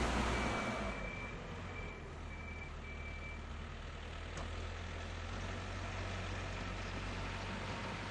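Tractor engine that is loud at first and eases down over the first second into a steady, low idle. A faint, broken high tone sounds over the first few seconds.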